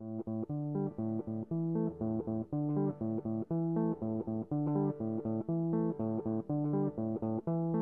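Background music: a picked guitar line over a bass, a steady run of short notes that starts abruptly.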